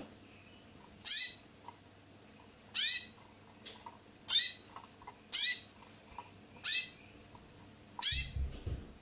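A small caged finch calling six times, a second or so apart; each call is a short, loud note that slides down in pitch. A few low knocks come with the last call near the end.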